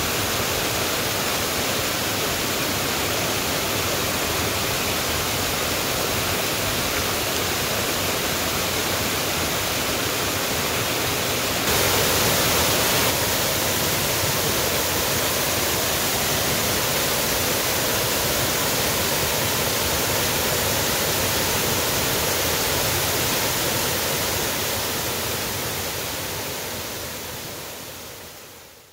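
Waterfall cascading over rock into a creek: a steady rush of falling water, a little louder for a moment about twelve seconds in, fading out over the last few seconds.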